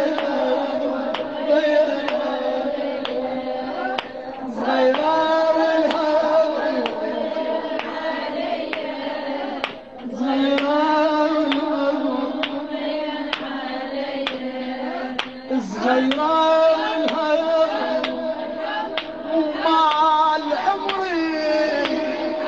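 A woman's voice singing a mournful Iraqi lament (latmiya) in long, wavering held phrases, over a steady beat of hand strikes.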